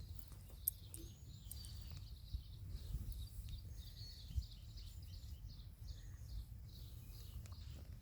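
Faint outdoor ambience: a steady low rumble with a faint high chirping repeating about three times a second, and a few soft clicks in the first couple of seconds.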